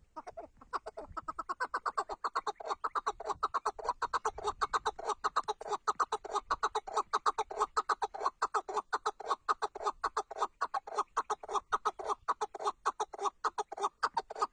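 Male chukar partridge, a 'Tatar keklik', calling: a rapid, even run of short clucking notes, about five a second. It builds up over the first two seconds, then keeps a steady pace and breaks off abruptly at the end.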